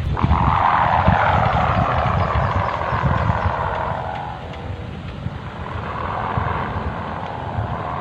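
Kite hummer (sendaren) droning in the wind with a snore-like buzz. It swells over the first few seconds, fades, then swells again near the end, over a low wind rumble on the microphone.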